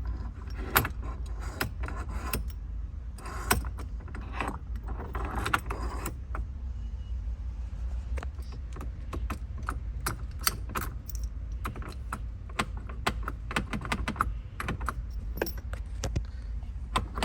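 Keys jangling and repeated sharp metal clicks and rattles as the key and locking mechanism of a quick-release steering wheel security lock are worked, over a steady low hum. The lock is not engaging: a small part inside it has not been fitted.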